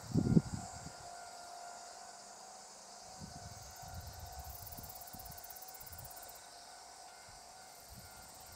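Evening countryside ambience: insects chirring and a faint steady tone, with a brief low thump on the microphone about a quarter of a second in and light low rumbles after it.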